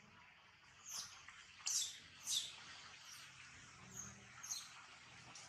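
Short, high-pitched animal chirps: about five brief calls spaced unevenly. The two loudest come in the middle, and two fainter ones come near the end.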